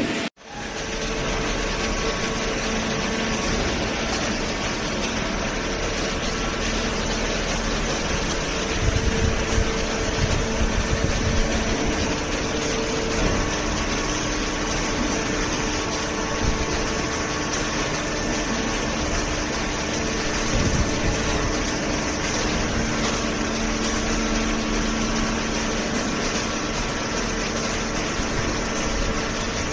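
Industrial machinery running steadily, a dense mechanical noise with a constant hum and whine, typical of a hydraulic baler's electric motor and pump. A short cut to silence comes just after the start, and the low rumble swells briefly about a third of the way through.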